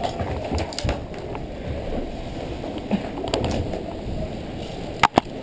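Scuffing and crunching of a player moving over rubble and debris, close to the camera, ending in two sharp snaps in quick succession near the end.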